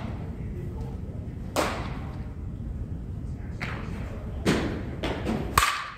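Softball batting practice: a series of sharp knocks and thuds from bats striking balls and balls hitting the cage netting. The loudest crack comes near the end, with a brief ring after it.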